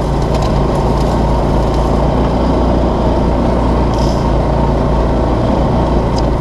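Linhai Big Horn 400 UTV's single-cylinder engine running steadily under way, with a few brief rattles.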